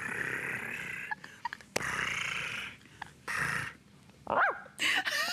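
Person imitating a dog's noises: four breathy, rasping stretches and a short yip about four seconds in.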